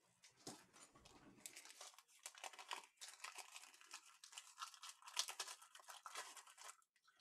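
Faint crinkling and rustling of plastic packaging being handled, a dense run of small crackles that stops shortly before the end.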